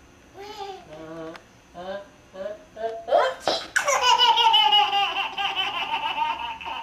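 A toddler laughing: a few short vocal sounds, then from about three seconds in a loud, long, high-pitched laugh.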